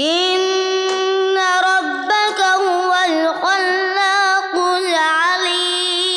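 A boy's voice reciting the Quran in melodic tajwid style through a microphone. It is one long, continuous phrase lasting about six seconds, held and ornamented with wavering turns of pitch, and it stops near the end.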